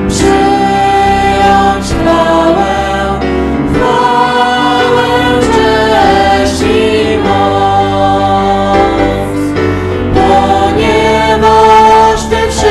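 A worship song sung by a man and two women into microphones, accompanied on a Kawai MP11 digital stage piano, with long held notes.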